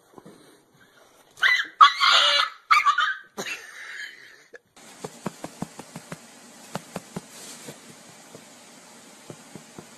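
Harsh yelping from a dog scuffling with a cat, in a few loud bursts in quick succession starting about a second and a half in. After that, a steady faint hiss with scattered light ticks.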